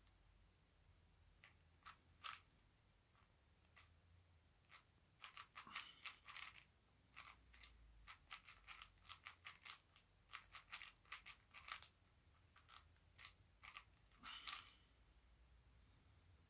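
A 4x4 puzzle cube being turned by hand: faint plastic clicks and clacks of its layers turning, in quick irregular flurries with short pauses between them.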